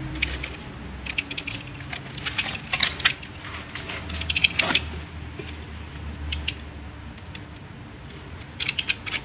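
PVC ceiling panels being handled and scored with a utility knife on a tile floor: scattered bursts of light plastic clicks and clatter.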